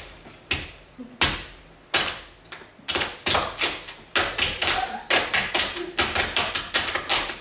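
Performers' rhythmic hand percussion: sharp single strikes spaced about two-thirds of a second apart at first, then from about three seconds in a quicker, uneven run of four or five strikes a second.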